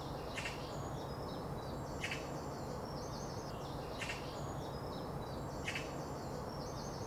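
Woodland ambience: a steady background noise with a low hum, and high bird chirps repeating in the same pattern about every two seconds.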